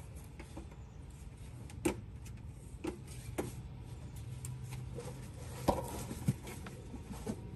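Handling noise as a thin flexible CIGS solar panel is moved and laid flat on the ground: a few scattered knocks and rustles over a low steady rumble, the sharpest knocks about two seconds in and twice near six seconds.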